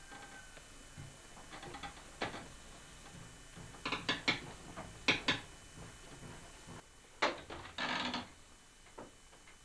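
Wooden potter's wheel being turned by foot, its wheel and frame giving irregular knocks and clatters in small bunches.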